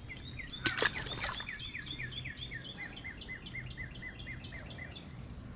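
A bird singing a long run of short, repeated arched notes, about four to five a second, with a couple of sharp clicks about a second in.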